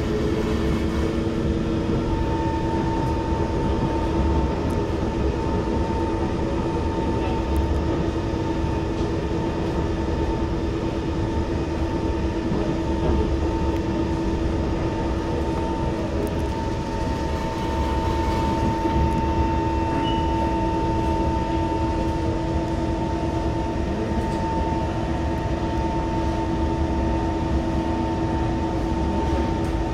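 SMRT C151 metro train running along the line at steady speed: a continuous low rumble with two steady humming tones, the higher one joining about two seconds in.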